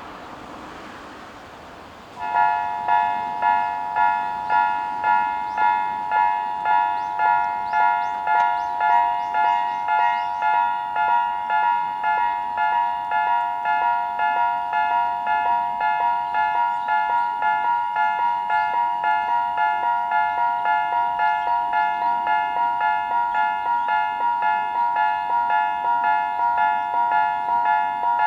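Japanese railway level crossing alarm starting about two seconds in and ringing on in steady electronic dings, about three every two seconds. Two alarm units sound together, a lower-pitched one on the south side and a higher-pitched one on the north side.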